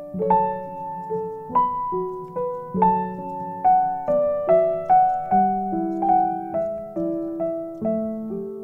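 Background piano music: a gentle melody of single struck notes, each fading away, about two a second, over soft low chords.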